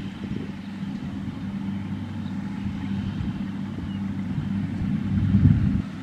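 Kubota DC70 rice combine harvesters' diesel engines running steadily as the machines travel across the field, a constant low hum. A louder low rumble swells near the end.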